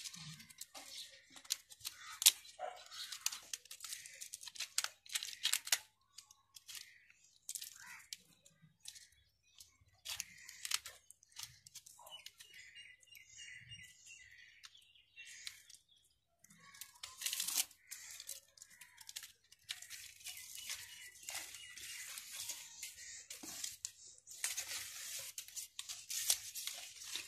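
Crackling, tearing and rustling of stiff green leaf strips being cut with a sickle and handled, a stop-and-start run of sharp clicks and crinkles.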